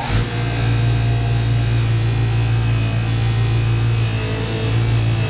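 Bench buffer motor running at speed with a steady hum, its buffing wheel polishing a resin pen blank on a mandrel with fine scratch-remover compound.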